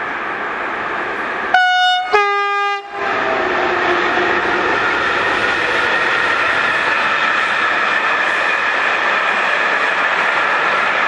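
Locomotive 481 001 sounds its two-tone horn about a second and a half in: a short higher note, then a slightly longer lower one. Then the container train rolls past with a steady rumble of wheels on rails.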